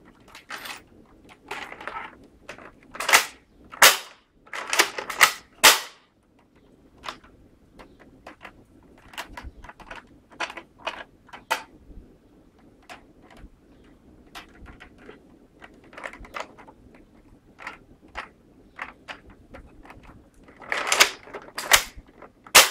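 Plastic clicks and clacks of toy Nerf blasters being handled and worked, with rattling clusters of loud clacks a few seconds in and again near the end, and lighter scattered clicks between.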